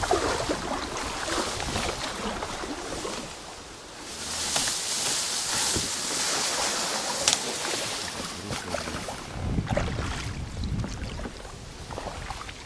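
Water splashing and sloshing around a small boat, a brighter stretch of splashing in the middle with a single sharp click, then a low rumble of wind on the microphone near the end.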